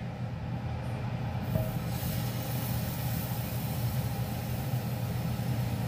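Crepe batter sizzling as it is ladled onto a hot non-stick aluminium crepe pan, the hiss starting about a second and a half in and holding steady. A steady low hum runs underneath.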